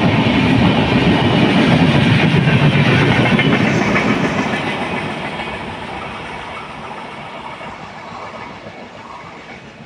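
Passenger coaches of an express train running through a station at speed without stopping, wheels clattering on the rails. The last coach passes about four seconds in, and the sound fades steadily as the train moves away.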